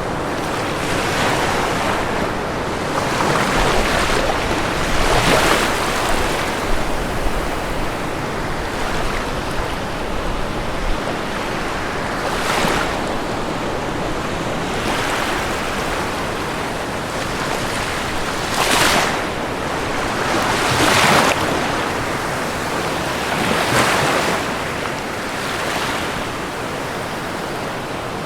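Ocean waves breaking on a shore in a steady rush of surf, with a louder wave crashing every few seconds, most strongly near the middle and past two-thirds of the way through.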